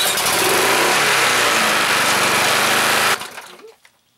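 Briggs & Stratton 6.5 hp Intek single-cylinder engine on a push mower running loud after its carburetor has been reassembled, wavering in speed briefly and then holding steady. It stops about three seconds in, the sound dying away within a second.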